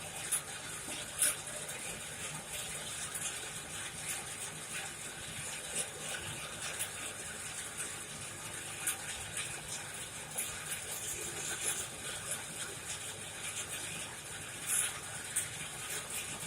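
Coal forge fire burning with a steady rush of air through the coals and scattered crackles and pops, heating a steel knife blade for hardening.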